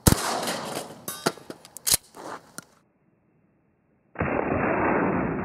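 A 12-gauge shotgun fires a single golf-ball slug, a sharp blast that echoes away, with a few more sharp cracks over the next two seconds. After a short silence, a steady rushing noise starts about four seconds in.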